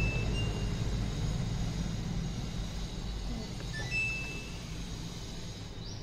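Samsung top-load washing machine running with a low hum that slowly fades as its drum winds down. Short electronic beeps from its control panel buttons sound at the start and about four seconds in.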